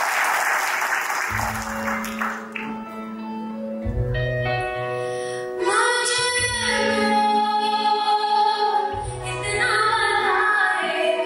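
Background music: a slow song with a woman singing over held chords and a deep bass note every couple of seconds. Applause from the room dies away during the first two seconds.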